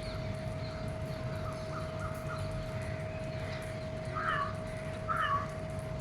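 Birds calling: faint chirps early on, then two short, louder calls about four and five seconds in, over a steady hum and low background noise.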